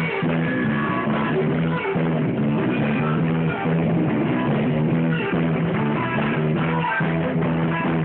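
Live rock band playing: bass guitar, electric guitar and drum kit, with a steady repeating bass line.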